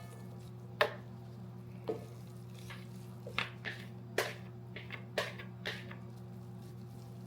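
Scattered light knocks, taps and squishes of raw ground chuck and its packaging being handled for a meatloaf, about eight short sounds spread through, over a steady low hum.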